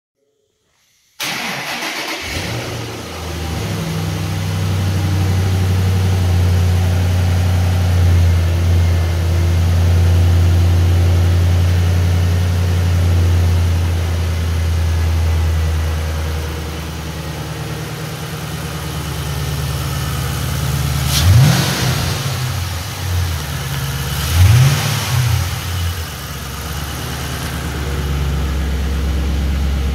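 2005 Ford Mustang GT's 4.6-litre V8 starting after a short crank and settling into a steady idle. About two-thirds of the way through, the throttle is blipped twice, each a quick rise and fall in revs through the exhaust, before the engine drops back to idle.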